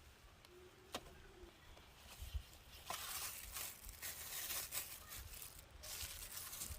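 Irregular crackling and rustling starting about three seconds in, with a single sharp click about a second in.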